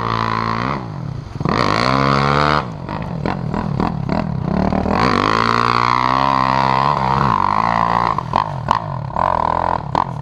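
Enduro dirt-bike engines revving hard through deep mud, the pitch rising and falling again and again as the riders open and close the throttle, with one bike passing close.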